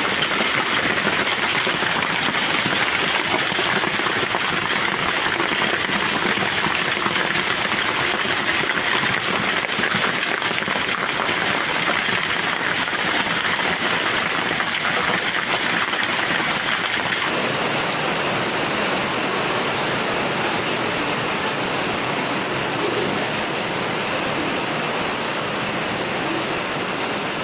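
Steady rushing noise of storm water, even throughout with no distinct impacts; the highest hiss thins out about two-thirds of the way through.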